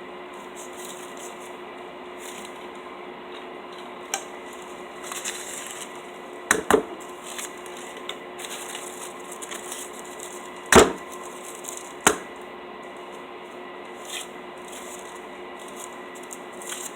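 Drinking straws being unwrapped and handled: light rustling of the wrappers with a few sharp taps and knocks, the loudest a little past halfway, over a steady hum.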